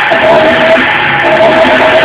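Loud rock music with distorted guitar, its notes held at steady pitches that change in steps.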